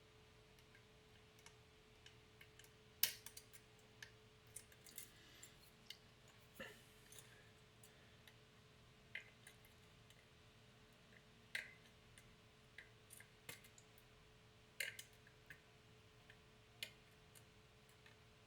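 Lock picks working the pins of a pin-tumbler challenge lock: faint, small clicks at irregular intervals, about a dozen, while the lock is still not open. A faint steady hum runs beneath.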